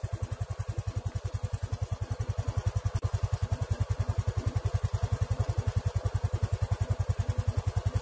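A small engine idling, a steady low pulsing of about ten beats a second.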